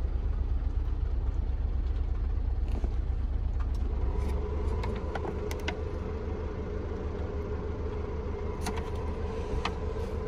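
Car cabin ambience with the engine idling: a steady low rumble that eases about four and a half seconds in, when a steady hum sets in, with scattered light clicks.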